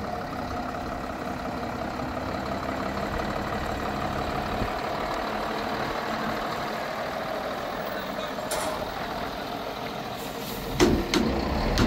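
A vehicle engine running steadily, with a few loud knocks near the end.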